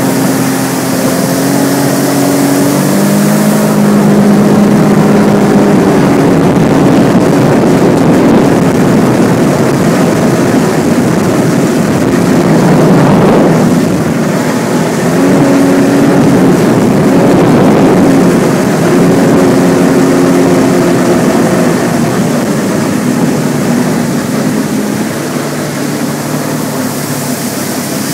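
2012 Sea-Doo RXP-X personal watercraft's supercharged four-stroke engine running under way, its pitch rising and falling as the throttle changes, over the rush of wind and water.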